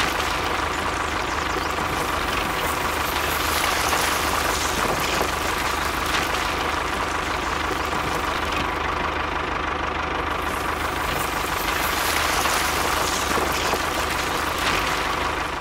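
Toy tractor's motor running steadily as its front-loader blade pushes soil: an even engine-like drone with a thin high whine, fading out near the end.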